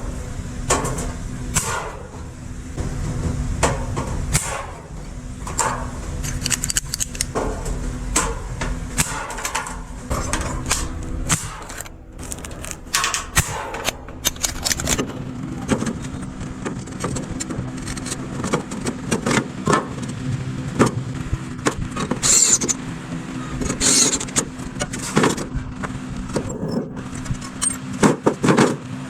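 Building work: many short, sharp metallic clinks and knocks at an uneven pace, over a steady low machine hum.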